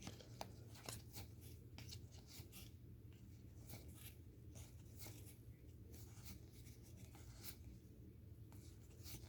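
Faint soft clicks and rustles of trading cards being flipped through by hand, scattered irregularly over a low steady hum.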